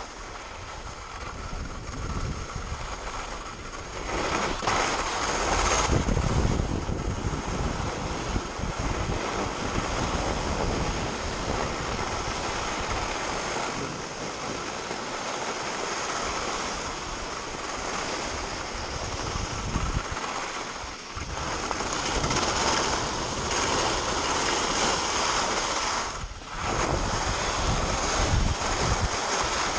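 Wind buffeting an action camera's microphone while skiing downhill, with skis scraping over groomed snow through the turns. The rushing noise swells and dips, easing briefly twice in the second half.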